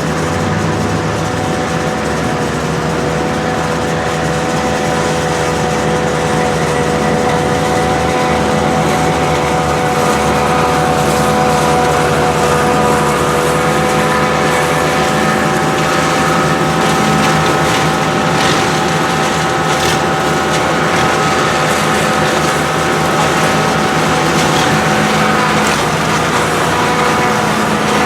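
Tractor-drawn forage harvester chopping maize: steady tractor engine with a high whine from the chopper, which dips slightly in pitch about two seconds in and gains a higher tone about ten seconds in.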